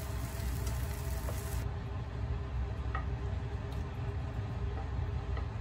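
Tomato and egg stir-fry sizzling gently in a frying pan as it is stirred with chopsticks, with a few light taps, over a steady low hum.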